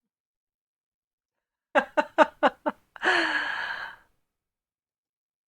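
A woman's voice making five quick voiced bursts, each falling in pitch, then a breathy sigh about a second long.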